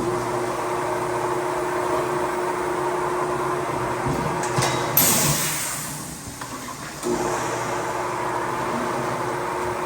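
Air-powered tire-shop equipment running with a steady machine tone. About five seconds in it stops with a sharp burst of air hiss that fades over a second, then starts running again about two seconds later.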